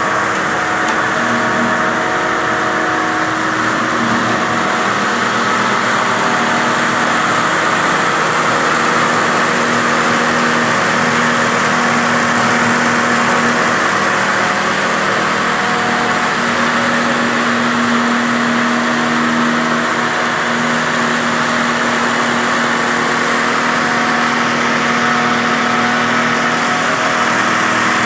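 Turmeric grinding plant running: the belt-driven grinder, rotary airlock and vibro sifter together make a loud, steady mechanical drone with several steady hums.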